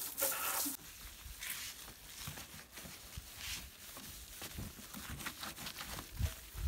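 Hose water spraying on the motorcycle, cutting off abruptly less than a second in. Then a microfibre cloth rubs and wipes over the wet painted fuel tank in soft, repeated swishes.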